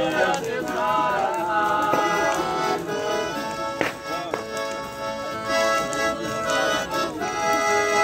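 Live band playing traditional folk music on accordion and acoustic guitar.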